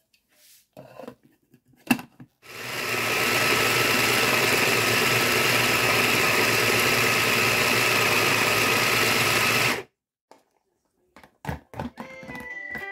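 Electric mini food chopper running, its blade grinding raw beef into a paste for meatballs. A few light clicks and knocks come as it is assembled, then the motor starts about two seconds in with a steady whine and cuts off suddenly after about seven seconds.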